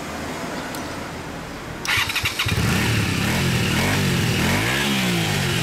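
Honda VTZ250's 250 cc V-twin engine being started about two seconds in: a brief crank, then it catches, revs up and down a couple of times and settles into a steady idle.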